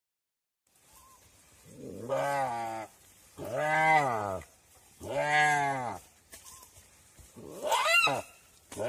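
Deer bleating in distress while a Komodo dragon eats it alive: four long calls of about a second each, rising then falling in pitch, with a fifth beginning at the very end. The fourth call is higher than the rest.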